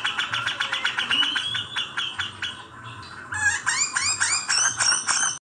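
Mixed birdsong of Eurasian tree sparrow fighting calls and a cucak jenggot (grey-cheeked bulbul). Fast, harsh chattering runs for the first two and a half seconds, then after a brief lull comes a run of loud arching notes, about three a second, which cuts off suddenly just before the end.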